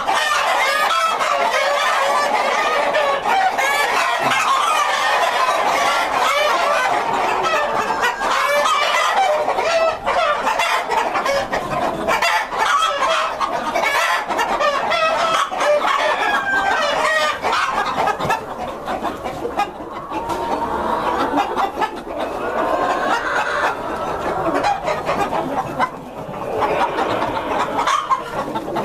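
A large flock of Partridge Cochin chickens, hens and roosters, clucking and calling over one another without a break, easing somewhat in the last third.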